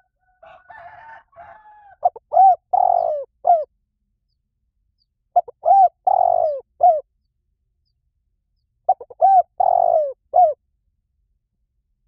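Spotted dove cooing: three phrases of several coo notes each, a short note, a longer main note and a closing note, repeated a few seconds apart.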